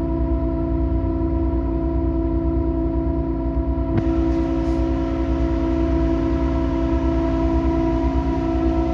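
Steady drone of a ship's engines and machinery heard on deck: a low throbbing rumble with several steady humming tones over it, and a single click about four seconds in.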